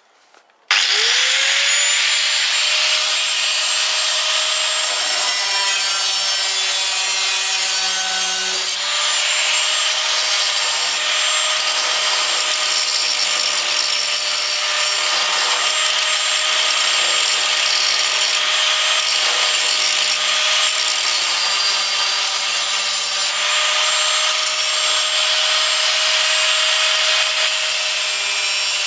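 Electric arc welder laying a continuous weld on steel: a steady crackling hiss with a whine over it, striking up abruptly about a second in.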